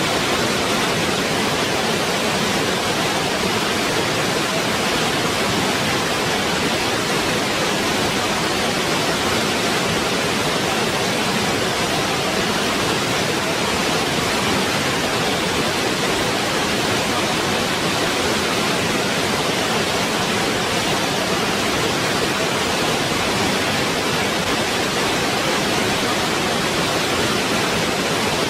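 Waterfall: water pouring steadily in an even, unbroken rush.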